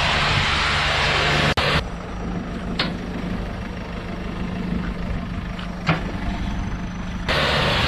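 Tractor engine running steadily. It drops abruptly to a quieter running sound about a second and a half in and jumps back to the louder sound near the end. Two sharp clicks are heard during the quieter stretch.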